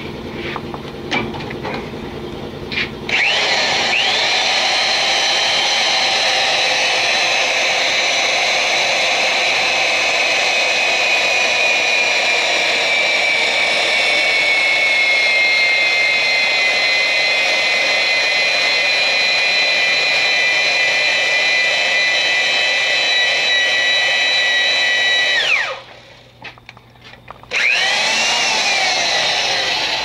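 Drill spinning a tube roller inside a boiler tube end, rolling the tube out to seal it into the tube sheet: the motor whines up about three seconds in and runs steadily for some twenty seconds, its pitch slowly sinking. It cuts off, then whines up again about two seconds later. A few clanks come before it starts.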